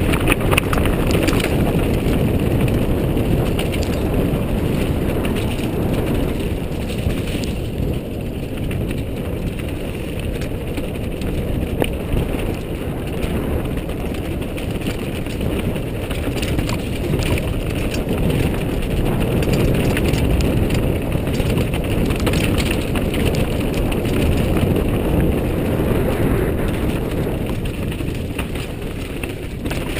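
Mountain bike descending a rough rocky trail at speed: a continuous rumble of tyres over loose stones with the frame and parts rattling, and many sharp clacks of rocks hitting the bike.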